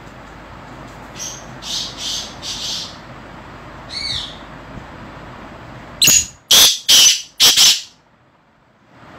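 Male black francolin calling: a run of high notes about a second in, a single note near the middle, then a loud burst of about five notes about six seconds in, over a steady background hiss.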